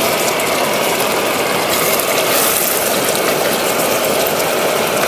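Chicken karahi sizzling and bubbling in the pot in its last stage of cooking: a loud, dense, steady crackle.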